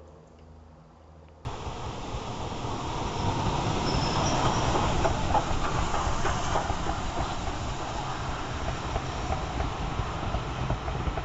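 Steam-hauled passenger train passing close by at speed: a loud rumble of locomotive and coaches running over the track, with wheels clicking over rail joints. It starts abruptly about a second and a half in.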